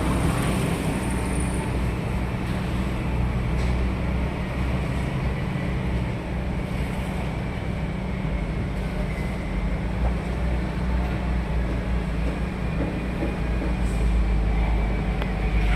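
Steady roadside traffic noise, with a low engine hum running throughout.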